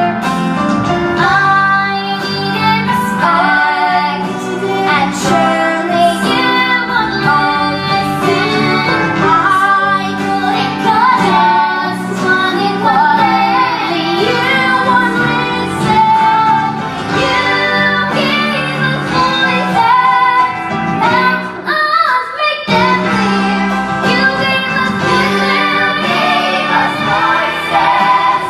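A young girl's voice singing a slow rock ballad over band accompaniment, with a brief break in the music about 22 seconds in.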